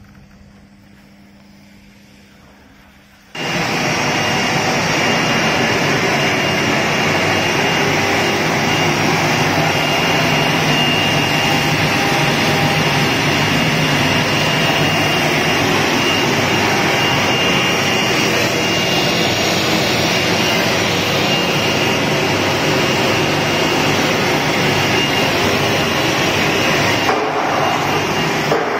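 ART-1325V vertical CNC router working an MDF sheet held on its vacuum table: a loud, steady machine noise with a high spindle whine. It starts abruptly about three seconds in, after a quiet low hum, and holds steady.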